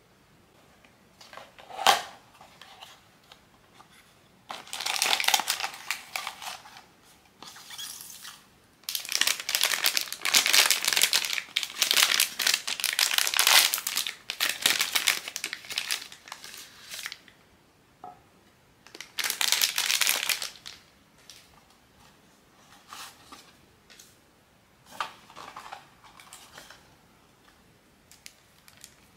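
Blind-box figure packaging crinkling and tearing as it is unwrapped by hand, in several bursts, with a sharp click about two seconds in.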